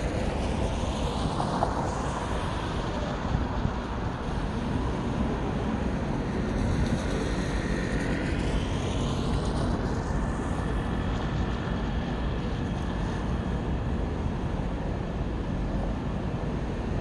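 Steady city street traffic noise, with a swell as vehicles pass near the start and again about seven to ten seconds in.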